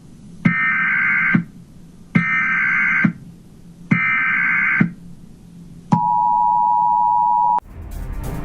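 Emergency Alert System broadcast signal: three electronic data bursts of about a second each, then the two-tone attention signal held for under two seconds before cutting off sharply. A news-style theme music starts just after it, near the end.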